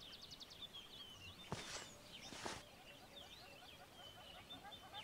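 Faint garden ambience of small birds chirping and twittering, with two brief rustles about one and a half and two and a half seconds in.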